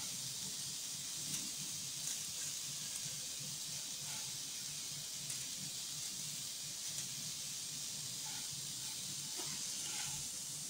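Steady hiss, with a few soft rustles and light taps from hands tossing oil-coated dry vermicelli in a steel pot.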